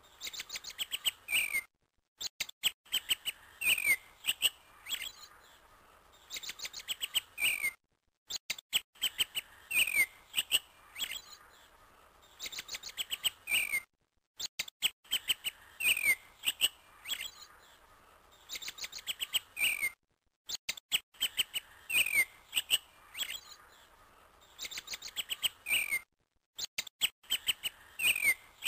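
Birds chirping and twittering, with short falling calls: a brief birdsong recording looped over and over. It repeats about every six seconds, each pass separated by a short gap of silence.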